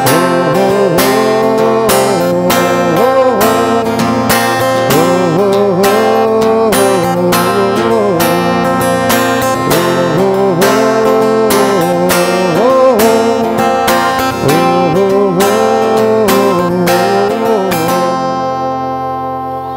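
Acoustic guitar strummed in a steady rhythm, accompanying a Kashmiri Sufi song. The strumming stops near the end, and a last chord is left ringing as it fades.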